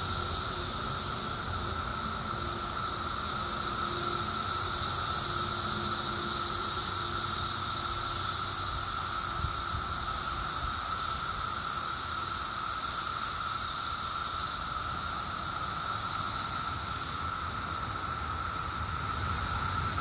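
Dense chorus of Brood X periodical cicadas: a steady high-pitched drone with a lower steady hum beneath it, swelling briefly a few times in the second half.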